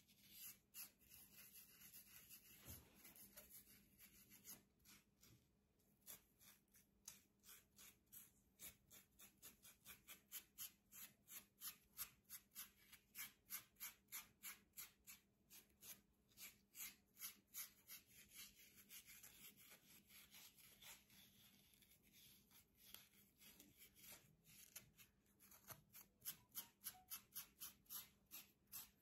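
Plastic fine-tooth comb scratching across a short-haired scalp thick with dandruff, loosening the flakes. It makes faint, dry scraping strokes, a few a second, in a steady back-and-forth rhythm.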